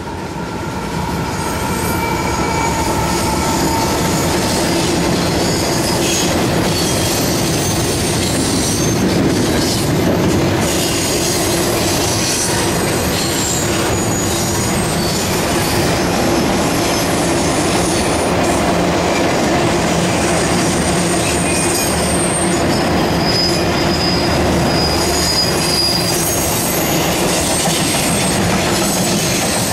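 Train cars rolling past close by with a steady rumble, and the wheels squealing in thin, high-pitched tones now and then, most in the second half.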